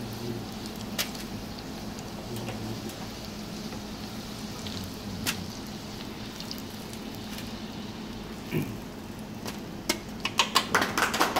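Breaded eggplant sticks deep-frying in a pot of hot oil: a steady sizzle, broken by a few sharp clicks of chopsticks against the pot and tray. Near the end comes a quick run of clicks and taps.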